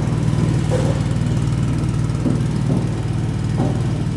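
Small Honda GX petrol engine running steadily under load, driving a vertical coconut-milk press as coconut pulp is pushed through.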